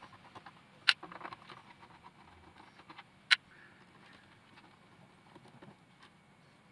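Two sharp plastic clicks, about two and a half seconds apart, with lighter ticks and rattles after the first, from a robot vacuum's casing being handled and taken apart.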